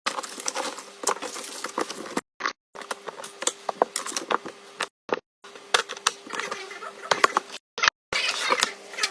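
Scattered sharp clicks and rustling, like objects being handled, chopped into short pieces by abrupt silent cuts, over a faint steady hum.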